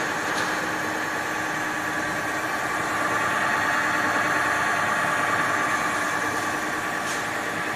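Overhauled thread rolling machine running empty, with no workpiece between the dies: a steady mechanical hum from its drive and hydraulic unit, with a light click near the start and another near the end.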